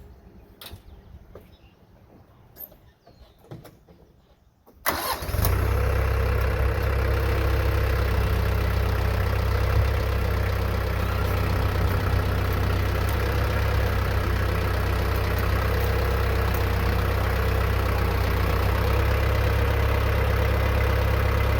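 An engine starts about five seconds in and then runs steadily, with a strong low hum. A few faint clicks come before it starts.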